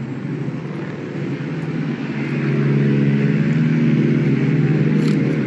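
A motor engine hums steadily, growing louder about two seconds in and then holding. There is a brief click near the end.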